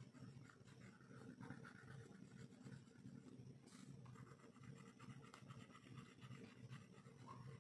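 Faint scratching of a red crayon shading on paper.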